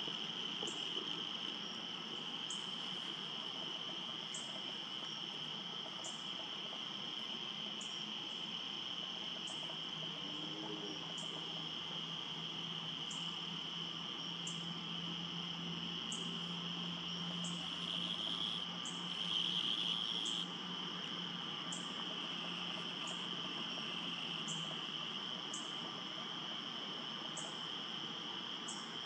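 Steady high chorus of night insects, crickets by the sound, with faint short high ticks about once a second. About two-thirds of the way through, the chorus briefly grows louder for a couple of seconds.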